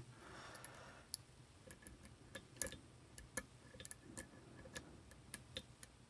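Faint, irregular metallic clicks and ticks from a short hook pick working the pins of a Yale pin-tumbler cylinder lock under a tension wrench.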